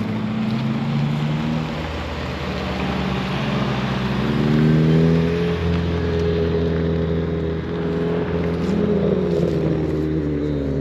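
Car engine running, its pitch rising in a rev about four seconds in and again around eight seconds, with the first rise the loudest.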